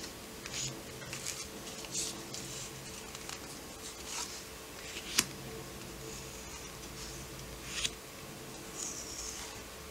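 Paper postcards being handled and slid over one another: short, soft swishes every second or so, with one sharp click about five seconds in. A faint steady hum runs underneath.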